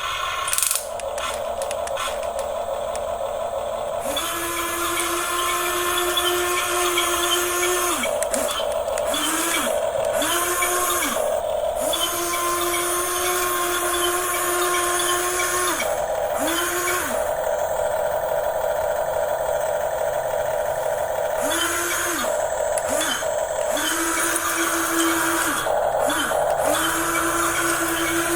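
Small electric motors of a Huina RC excavator or truck running with a whine, starting and stopping about ten times as the controls are worked. The runs range from several seconds to under a second, and each rises in pitch as it starts and falls as it stops, over a steady gear-like rattle.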